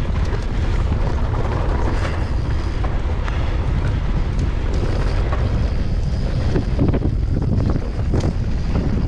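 Wind buffeting the microphone over the rattle of a mountain bike descending a rough dirt trail, with many scattered sharp clicks and knocks from the bike and tyres hitting the ground.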